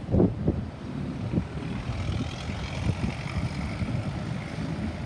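Road traffic rumbling past, with wind buffeting the microphone and a few thumps in the first second and a half.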